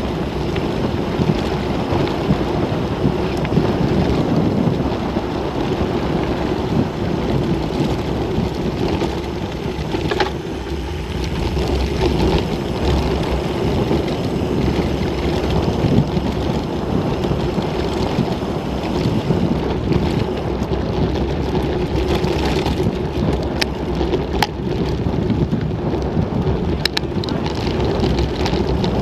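Mountain bike descending a loose gravel track at speed: tyres rumbling and crunching over stones, the bike rattling, and wind rushing over the camera's microphone. Sharp clicks and knocks from stones and the bike stand out near the end.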